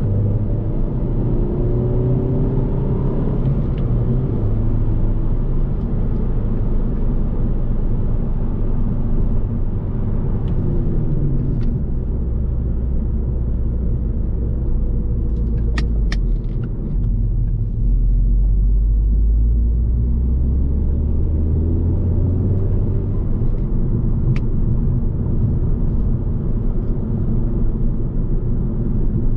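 Cabin sound of a 2011 Alfa Romeo Giulietta 1.75 TBi under way: its turbocharged four-cylinder petrol engine running, with tyre and road noise. The engine note rises and falls a few times, and a few sharp clicks come about halfway through.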